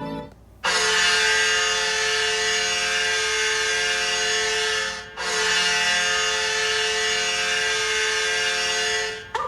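NHL goal horn sounding two long, steady blasts of about four seconds each, with a brief break between them.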